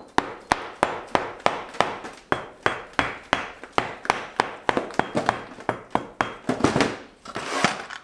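Rapid hammer blows, about three a second, knocking on a sand-casting mould in a wooden flask to break the sand away from freshly poured bronze castings. Near the end the knocks give way to a rougher, noisier stretch.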